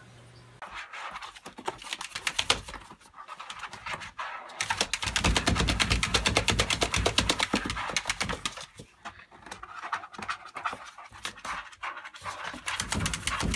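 Yorkshire terrier panting fast and scrabbling about inside a plastic laundry basket, with quick regular breaths and claw scrapes, busiest in the middle few seconds.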